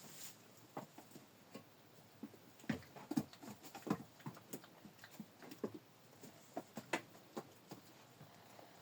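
Goats' hooves tapping and knocking irregularly as the goats move and jump about, the taps thickest and loudest through the middle.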